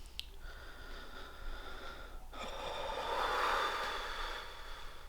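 A person breathing heavily close to the microphone: a small click just after the start, then two long breaths, the second louder and swelling to a peak partway through.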